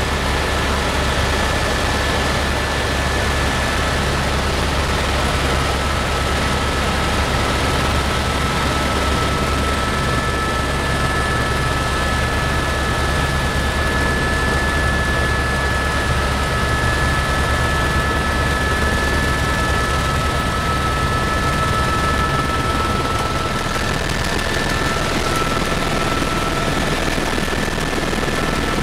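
Helicopter rotor and turbine engine running steadily in cruise, heard from inside the cabin: a constant deep drone with a thin, steady high whine over it.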